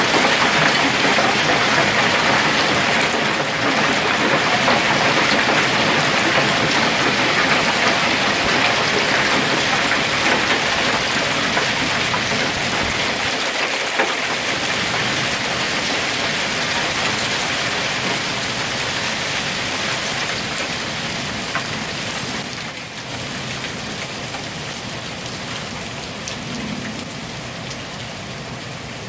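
Hailstorm downpour of rain and hail pelting parked cars and pavement: a dense, steady hiss that gradually eases.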